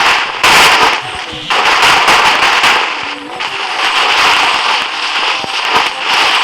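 Slime being squished and worked by hand, giving a dense run of crackling, popping clicks, with short lulls around one and a half and three seconds in.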